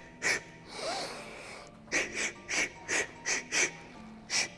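A kickboxer's short, sharp exhalations while shadowboxing, a small dose of air hissed out past the tongue held on the roof of the mouth with each punch: one puff, a longer breath drawn in about a second in, then a quick run of six puffs and one more near the end. The clipped exhales ration the air so the fighter keeps a reserve.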